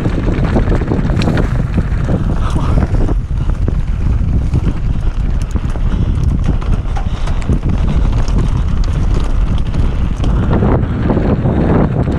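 Wind buffeting the microphone over the rumble of a mountain bike on a rough trail, with scattered short knocks and rattles from the bike and tyres striking the ground.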